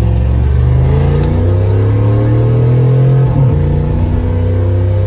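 Dodge Durango engine running through a straight-piped exhaust, with the muffler deleted and only a gutted catalytic converter left, under acceleration. The engine note climbs steadily, then dips briefly about three and a half seconds in, as the automatic transmission shifts up.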